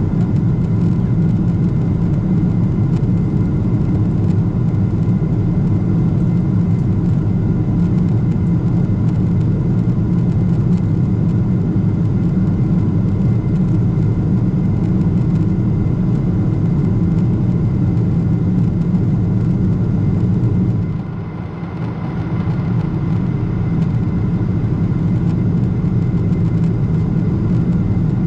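Boeing 777-200ER cabin noise in flight: the steady rumble of the engines and airflow, with a faint steady whine above it. The level dips briefly about three-quarters of the way through, then returns.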